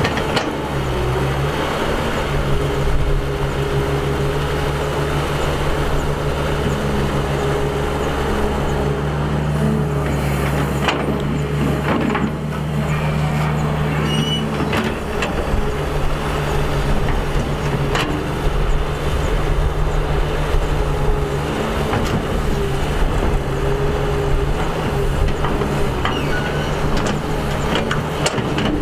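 Excavator's diesel engine running steadily as it works, its pitch shifting a little, with a few sharp knocks about a third and two thirds of the way through.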